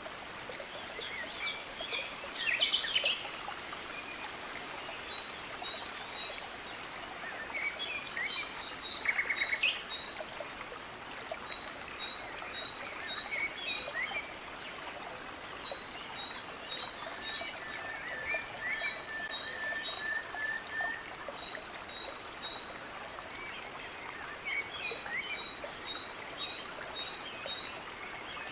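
Steady rush of a small waterfall spilling into a rocky river pool, with birds calling and a high chirp repeating about once a second. Louder bursts of bird calls come about two and eight seconds in.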